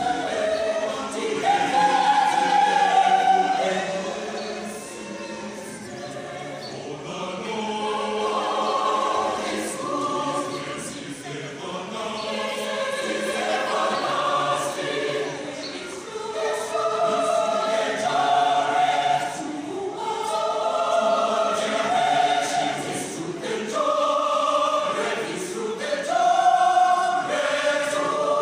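Mixed church choir of men's and women's voices singing in parts, holding sustained chords in phrases of a few seconds that swell and fade.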